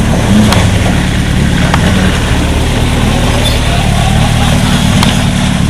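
A four-wheel-drive ute's engine running at low revs as it crawls up a steep, muddy, rocky track, with the revs lifting a little now and then. A few sharp clicks sound through it.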